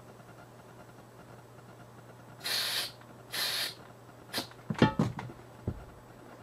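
Compressed air hissing twice from an air chuck pressed on the valve stem of a small strapped-up tractor tire, each hiss under half a second and about a second apart. Then a quick run of knocks and clatter, loudest a couple of seconds in after the hisses, as the tire and strap are handled.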